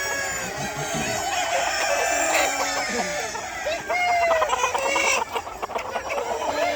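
A crowded flock of chickens clucking and calling over one another, with roosters crowing among them. A few sharp ticks come around five seconds in.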